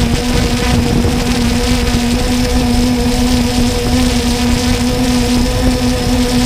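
Quadcopter drone's motors and propellers running at one steady pitch, a constant buzzing hum over a rushing noise, picked up by the camera on the drone itself.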